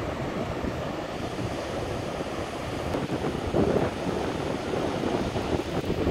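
Ocean surf breaking and washing up the beach, with wind buffeting the microphone. It gets louder for a moment a little past halfway through.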